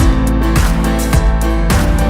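Background music: a plucked, strummed guitar with a steady beat.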